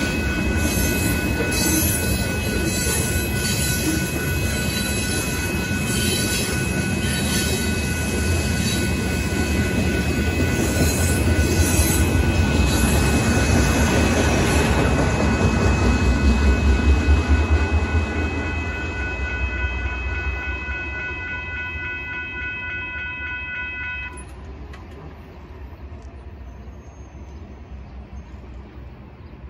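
Freight cars of a manifest train rolling through a road crossing: a rumble of wheels with a rhythmic clickety-clack, loudest about two thirds of the way through, then fading as the last car passes. Over it a steady ringing from the crossing bell, which stops abruptly near the end as the crossing clears.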